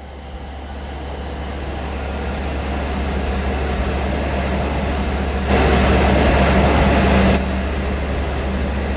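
Diesel locomotive plowing through deep snow as it approaches and passes close by, its low engine rumble and the rush of thrown snow growing steadily louder. Near the middle a louder, brighter rush of noise lasts about two seconds and then stops abruptly.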